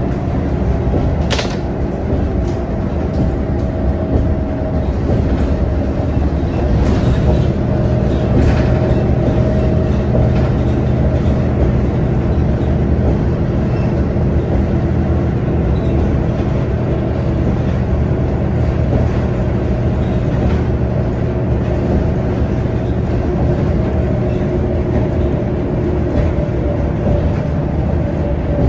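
Inside a moving city bus: steady engine and road noise with a faint, even whine. A sharp click about a second and a half in, and a few softer clicks a few seconds later.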